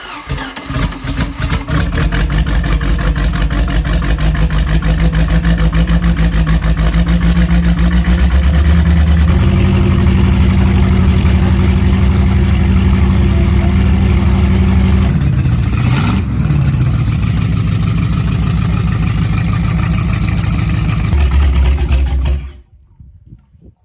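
MerCruiser 350 Magnum 5.7 L V8 marine engine cranking and catching, then running steadily with rapid exhaust pulses. The revs step up about ten seconds in and dip briefly later, and the sound cuts off near the end.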